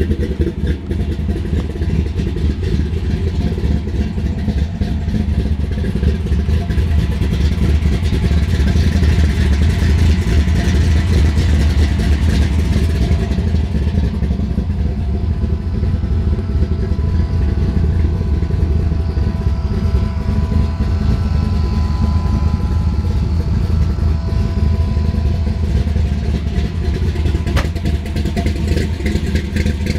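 1967 Chevelle SS's 496 cubic-inch big-block Chevrolet V8 idling steadily through its 3-inch exhaust, with a deep, even note.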